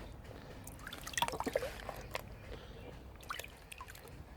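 Water dripping and trickling, with light clicks and knocks as a wet gun from a sunken safe is handled.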